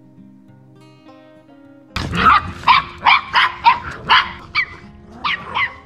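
Soft acoustic guitar music, then about two seconds in a dog breaks into loud, rapid barking, about ten barks in four seconds.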